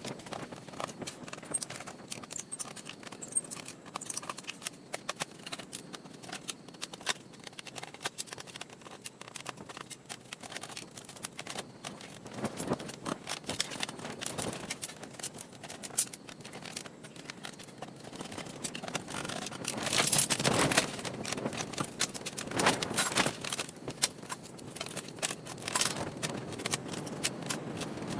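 Small clicks, taps and scrapes of a laptop's plastic and metal parts being handled and pried apart, with several louder stretches of scraping and rustling in the second half.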